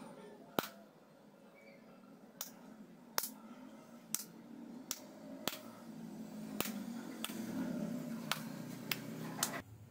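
About a dozen sharp clicks at uneven intervals, over a faint low hum.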